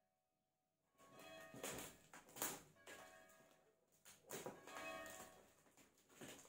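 Scissors cutting and scraping through packing tape on a cardboard box in short bursts, starting about a second in. Church bells ring steadily behind.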